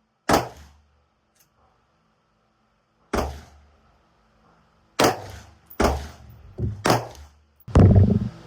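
AR-15 rifle firing 5.56 mm rounds: about seven sharp shots, irregularly spaced, coming faster in the second half, with the last and loudest one near the end.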